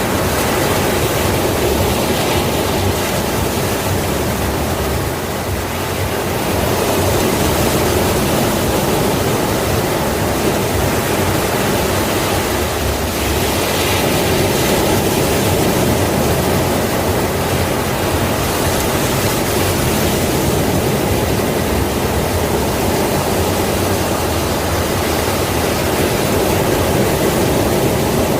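Ocean waves breaking and washing on a shore in a steady, continuous rush, swelling and easing slowly.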